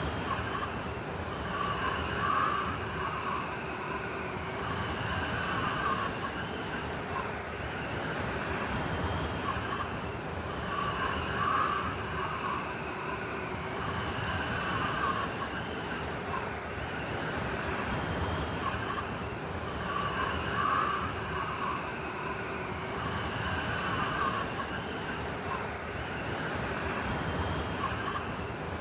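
Blizzard wind howling: a steady rush with whistling gusts that swell and fade, the same pattern coming back about every nine seconds.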